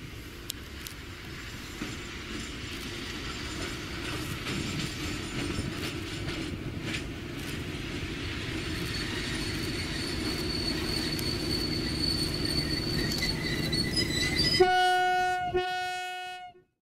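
SM42 diesel-electric locomotive approaching under power, its engine and the train's wheels growing steadily louder. Near the end the locomotive's horn sounds two blasts in close succession on one steady note, then the sound cuts off suddenly.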